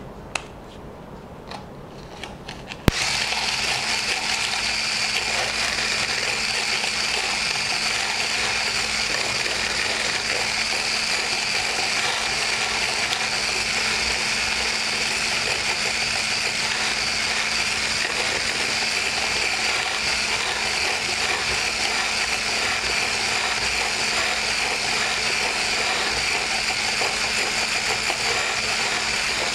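Electric stick whisk switched on about three seconds in and then running steadily, beating egg white and sugar into meringue; a steady motor hum with a constant low tone. A few light clicks of handling come before it starts.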